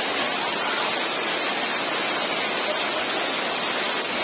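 Steady rushing noise of water, even and unbroken, with no separate events.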